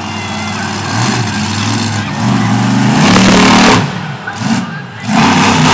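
Monster truck engine revving hard in surges, climbing in pitch and level to a peak about three seconds in, dropping off near four seconds, then surging again about five seconds in.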